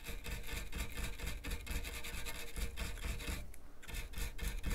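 Small metal brush scrubbing the copper ring around a circuit board's screw hole clean of corrosion: rapid scratchy strokes, with a brief pause a little after three seconds in.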